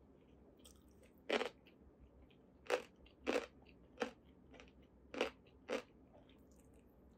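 Crisp crunching as a piece of yellow pickled daikon (takuan) is bitten and chewed: about six sharp crunches, a second or so apart.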